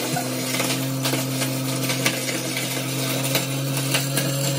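Franke TE 75 kitchen waste disposal unit running with tap water pouring into it: a steady motor hum under the rush of water, with scattered clicks of food scraps being ground up.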